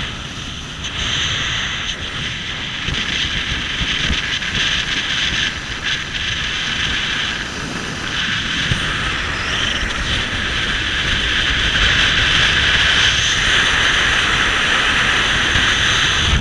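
Wind buffeting the microphone and water rushing past the hull of a small motorboat under way: a loud, steady rushing hiss over a low rumble, growing a little louder over the last few seconds.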